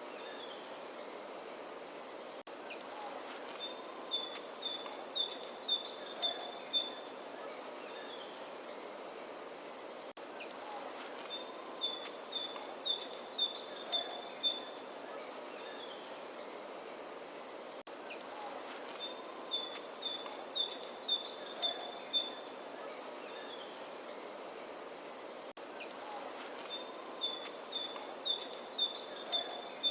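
A songbird singing the same phrase four times, about every eight seconds: two quick high notes sliding down, then a run of fast notes alternating between two pitches, over a steady outdoor hiss. The phrases are identical, as in a looped birdsong recording.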